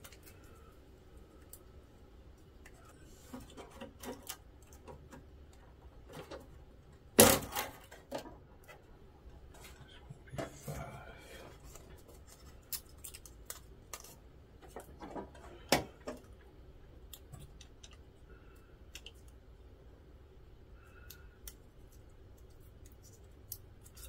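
Hands working among the cables and connectors on a printer motherboard: scattered small clicks and rustles, with a sharp knock about seven seconds in and another sharp click near sixteen seconds.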